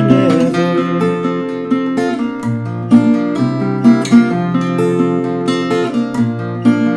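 Acoustic guitar playing chords alone, with no voice, in a steady pattern of plucked and strummed strokes.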